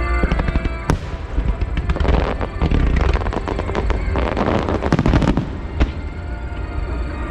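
Aerial fireworks bursting: a sharp bang about a second in, then two spells of dense crackling and another bang near the end, with music playing underneath.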